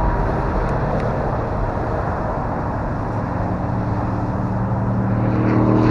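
Electric motor and propeller of a Carbon Cub S2 RC plane in flight, a steady buzzing drone that grows louder near the end as the plane comes closer or is throttled up.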